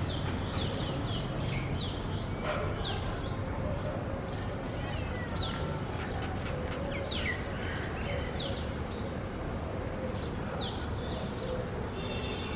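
Birds chirping: many short, sharp calls that sweep down in pitch, scattered irregularly, over a steady low rumble of background noise.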